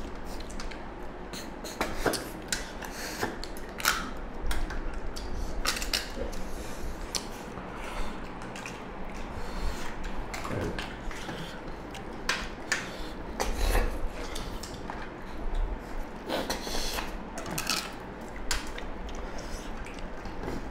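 Two people eating rice and curry by hand from stainless steel plates: irregular small clicks, scrapes and wet smacks of fingers and food against the metal plates, with chewing.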